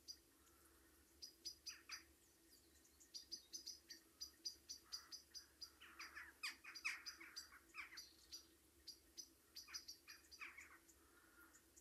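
Small birds chirping: many short, high chirps in quick runs, with a busier, louder cluster of lower calls about halfway through.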